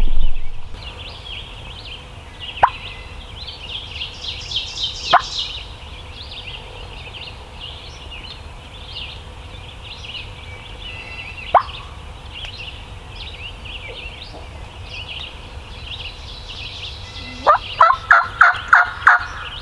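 Wild turkey gobbler gobbling once near the end, a rapid rattling run of about six notes, over steady songbird song. Three sharp short notes dropping in pitch come earlier.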